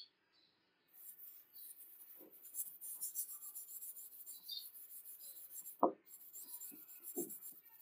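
Sandpaper rubbed back and forth by hand on a wooden tool handle in quick, scratchy strokes. The strokes pause briefly about six seconds in with a sharp knock, then resume, and a few softer knocks come between them.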